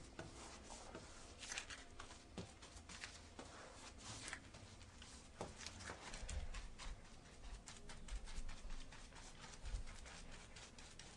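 Faint, irregular scratchy strokes and light taps of a paintbrush working paint onto a wall and trim.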